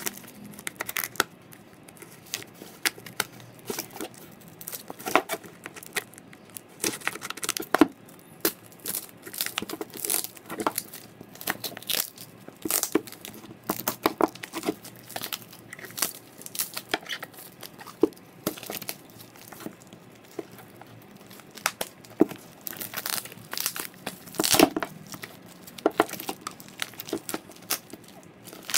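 Taped plastic parcel wrapping being torn open and crumpled by hand: irregular ripping and crinkling, with sharp crackles scattered all the way through.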